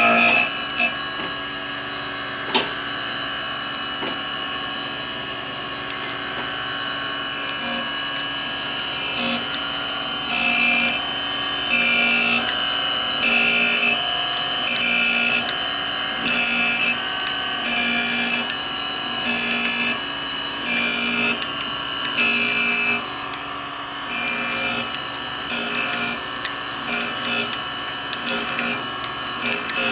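Taft Pierce reciprocating surface grinder running, its abrasive wheel grinding a steel block with a steady whine. From about eight seconds in, a harsher grinding burst comes about every 1.3 s as the reciprocating table carries the work back and forth under the wheel.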